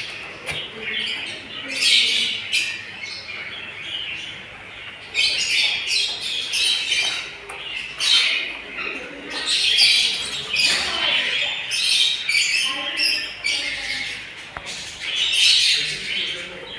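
A group of birds chirping and squawking, many short calls overlapping in busy clusters.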